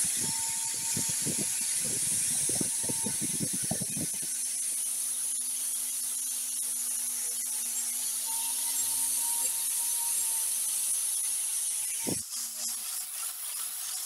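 Electric grinder working steel: a steady high grinding hiss over a motor hum, with uneven low rumbles in the first four seconds and a brief downward sweep about twelve seconds in.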